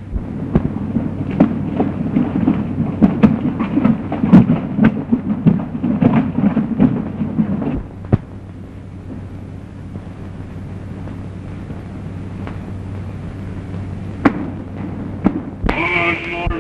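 Dense low rumbling noise peppered with sharp crackles and pops for about eight seconds, then cutting to the steady hiss and occasional clicks of an old film soundtrack.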